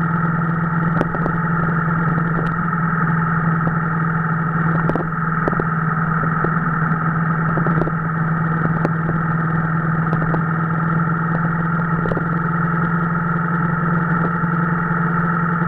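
Motorcycle engine running at a steady speed while riding, with a constant pitch and a few faint clicks.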